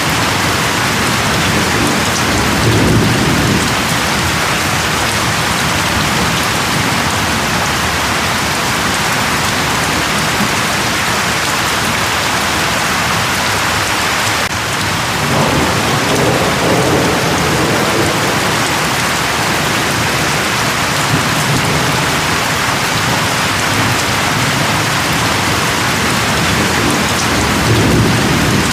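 Steady, heavy rain falling, with low rumbles of thunder about three seconds in, around the middle, and again near the end.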